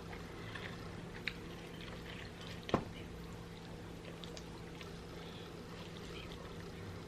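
Faint wet, sticky eating sounds of a person chewing a smoked turkey leg smothered in Alfredo sauce, with a small click about a second in and a sharper one near the three-second mark, over a steady low hum.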